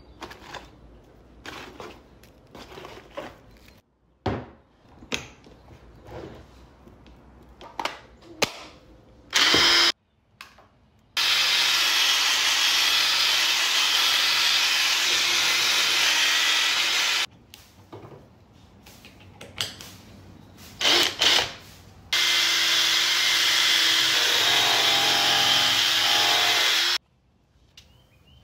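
Cordless drill, a Ryobi, spinning a nylon bristle brush wheel against a wooden tabletop edge, abrading off the old finish. It makes two long, steady runs of about six and five seconds, in the second half. Before and between them come scattered handling knocks and clatter.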